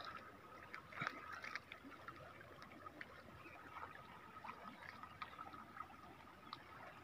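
Very faint river water at the bank, with scattered small ticks and a faint steady tone underneath.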